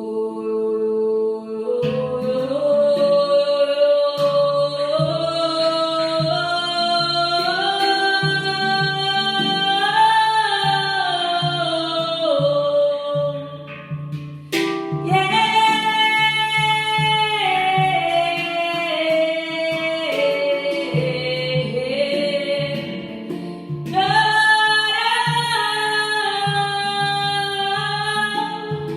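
Celtic-style song: a woman singing long, gliding notes over a plucked guitar, with a brief pause about halfway through.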